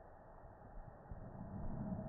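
Faint room tone with a low rumble that grows louder in the second half, typical of a phone being handled and moved while recording.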